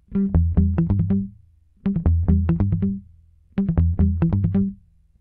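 Background electronic music: a synthesizer riff of quick, clipped notes in short phrases that repeat about every two seconds, with brief gaps between them.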